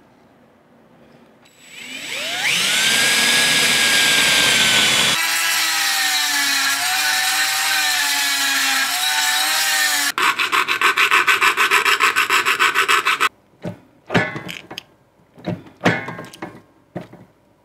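Small handheld rotary tool spinning up with a rising whine, then running steadily as it drills holes in a thin tin sheet. Later comes a fast, even rasping, then separate strokes of a hand file on the metal near the end.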